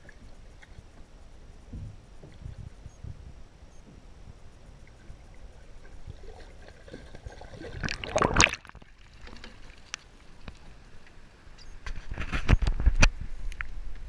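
Muffled water noise from a camera held under the river surface, with a loud churning splash about eight seconds in that stops suddenly. A second cluster of splashing and knocks comes near the end.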